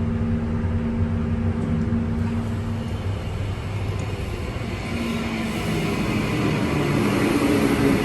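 Electric suburban train running, a steady hum with rail noise that grows louder and brighter about five seconds in.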